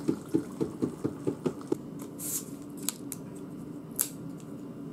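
Hot water poured from a kettle onto udon noodles in a plastic takeaway container, going in with quick glugs for about two seconds. Then a short rustle and a sharp crack about four seconds in, as disposable wooden chopsticks are snapped apart.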